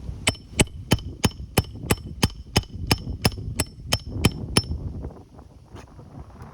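Hammer striking in a steady run of about fourteen blows, roughly three a second, each with a short metallic ring; the blows stop a little past the middle.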